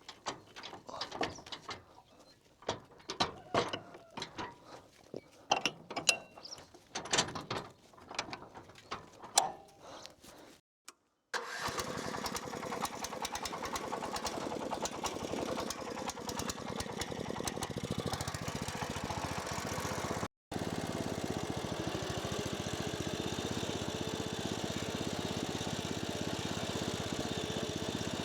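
Irregular sharp clicks and knocks for about ten seconds. After a cut, a small petrol engine runs steadily at an even pitch.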